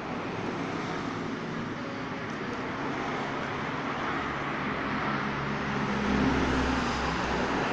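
Steady traffic noise with a low engine hum; a passing vehicle's rumble swells about six seconds in.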